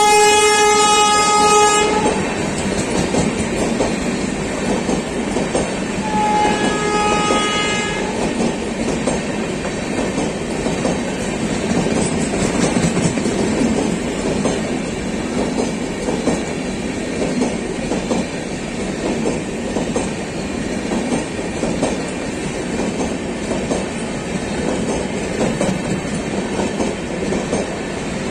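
The two-tone horn of a WAP-7 electric locomotive blares and cuts off about two seconds in, and a shorter, fainter horn blast follows about six seconds in. Then the express's passenger coaches rush past at speed, their wheels clattering over the rail joints in a steady rushing noise.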